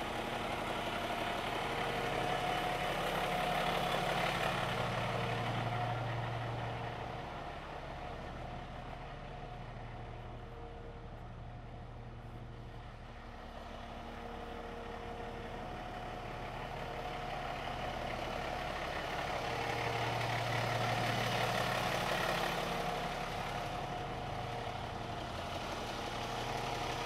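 Refuse truck's engine running, heard from inside the cab as a steady low hum. It swells louder twice, a few seconds in and again past the middle.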